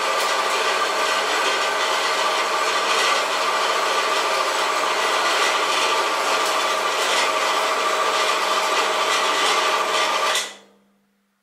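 HBM 128 metal band saw running and cutting through metal, a steady motor hum under the blade's rasping. About ten seconds in it stops abruptly and the motor winds down as the automatic switch trips just before the cut is finished, so the shutoff is set too early.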